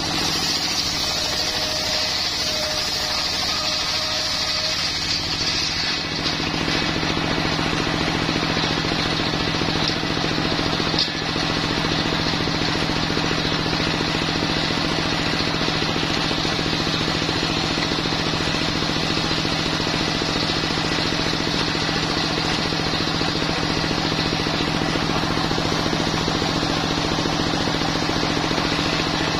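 Homemade circular saw bench driven by a single-cylinder stationary diesel engine. For the first few seconds the blade is cutting through a log with a hissing rasp. After that the engine runs on steadily with the blade spinning.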